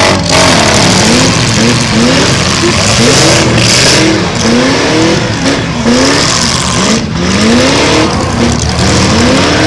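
Full-size demolition derby cars' engines revving hard again and again, the pitch climbing on each rev, as their drive wheels spin in thick tire smoke while pushing against other cars.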